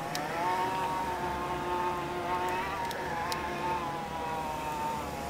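Electric drive motor of an e-bike whining steadily under load on a steep uphill climb, its pitch rising a little at first and then holding with slight wavers.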